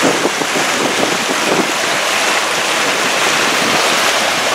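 Steady rush of wind on the microphone and water along the hull of a motorboat underway.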